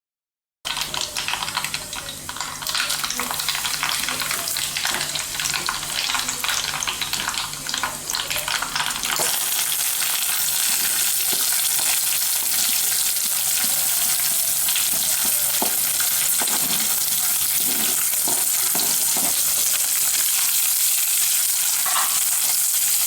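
Mustard seeds spluttering in hot oil for a tempering (kaduku thalikkal): about half a second in it starts suddenly with dense crackling and popping. Around nine seconds in it turns into a steadier, hissier sizzle.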